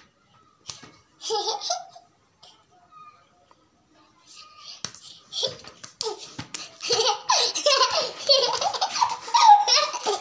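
A young boy laughing and giggling: a short laugh about a second in, then laughing almost without a break from about halfway, loudest near the end.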